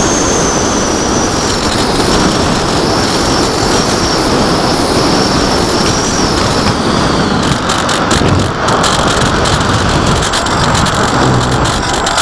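Strong wind buffeting the microphone, with the high wavering whine of a small aircraft's motor that cuts out about seven seconds in.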